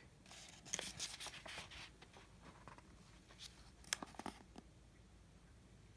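Faint rustling of a picture book's paper page being turned by hand, with a few light ticks and taps about four seconds in as the page settles.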